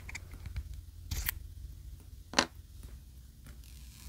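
A few small sharp clicks and light handling noises from a smartphone, as its SIM card tray is pushed home into the metal frame and the phone is handled.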